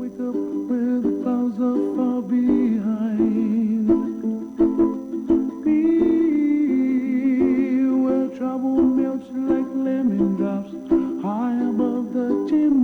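Ukulele music with a wavering melody line.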